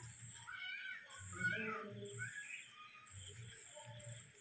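A kitten gives about three short mewing calls that rise and fall in pitch, all in the first half, while eating a chicken leg. Crickets trill in pulses in the background.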